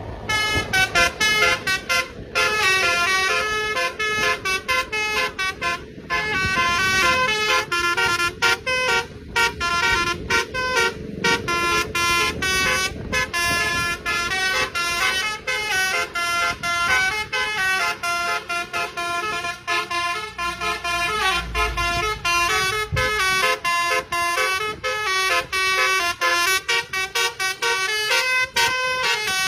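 Basuri multi-tone melodic vehicle horn playing a tune, its notes stepping quickly up and down without a break.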